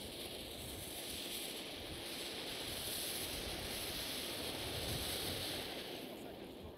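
Ground fountain firework burning, spraying sparks with a steady hiss that fades near the end.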